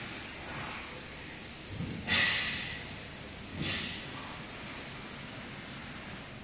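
Two short, sharp hisses of released compressed air, about two seconds in and again a second and a half later, the first the louder, over a steady workshop hiss.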